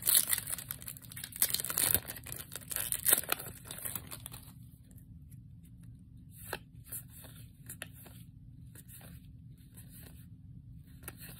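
Foil wrapper of a Yu-Gi-Oh booster pack crinkling and tearing as it is ripped open, loud for the first four seconds or so. After that come lighter, separate rustles and ticks of trading cards being slid and flipped one by one.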